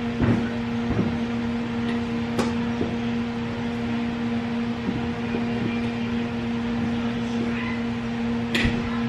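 A steady machine hum holding one even pitch, with a couple of sharp clicks, one about two seconds in and one near the end.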